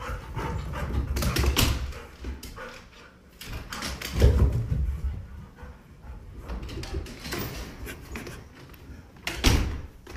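Dogs barking and whining, mixed with several heavy thumps; the loudest bursts come about four seconds in and again near the end.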